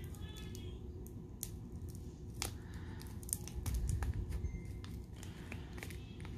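Plastic bag of chunky glitter crinkling as it is handled, with scattered small clicks and ticks over a low steady background hum.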